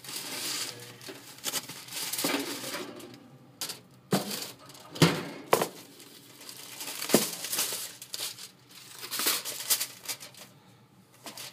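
Aluminium foil crinkling and rustling as a foil-wrapped pan of chicken is handled in a countertop toaster oven, with several sharp knocks in between.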